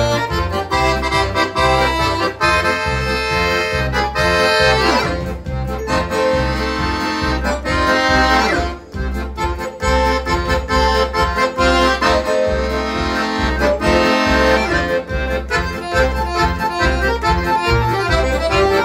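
Hohner piano accordion playing a fast, rhythmic Christmas tune, with a bouncing bass-and-chord accompaniment under the melody. There are two quick sweeping runs, about five and eight seconds in.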